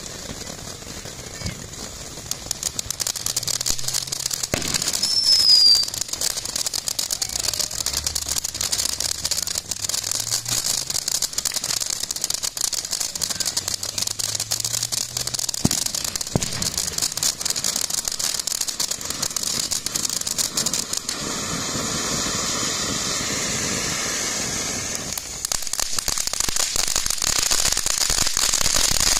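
Great Grizzly Unicorn Fountain, a ground firework fountain, burning with a steady hiss and dense crackling from its sparks and crackle stars. A short falling whistle comes about five seconds in.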